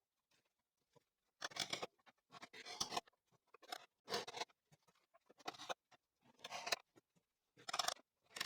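Quiet, short scraping and rubbing sounds of wooden pieces being handled during assembly, about six brief scrapes at irregular intervals a second or so apart.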